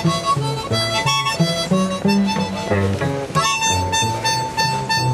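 Cello and harmonica duet: the cello walks a bass line in short, evenly paced low notes while the harmonica plays a melody over it. About three seconds in, the harmonica settles on one long held note.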